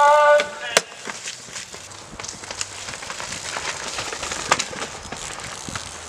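A held shout ends within the first second. A downhill mountain bike then passes on a dirt forest trail: tyres skidding and crackling over dirt and roots, with sharp clicks and rattles from the bike.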